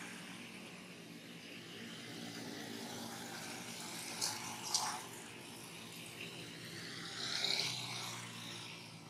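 Steady outdoor background hiss, with two brief sharp sounds about four and a half seconds in and a short higher-pitched sound a little before the end.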